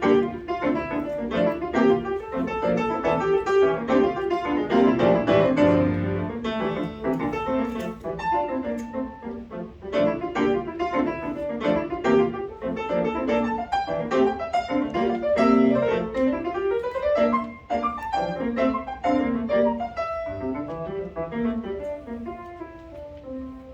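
Solo piano playing a fast, busy piece of quick runs and rapid notes. It thins out to softer, sparser notes near the end.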